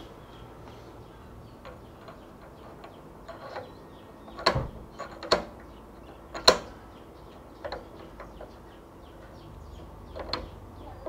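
Tapered shaft of a drill press chuck clicking and knocking against the spindle as it is twisted and pushed up into the bore to find its slot: a few sharp clicks, the loudest three between about four and a half and six and a half seconds in.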